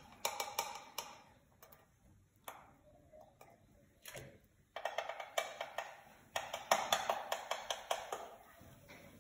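Small plastic measuring spoon clicking and scraping against a can of baking powder as the powder is scooped and tapped out into a plastic bucket: a few taps at the start, then quick runs of rapid clicks in the second half.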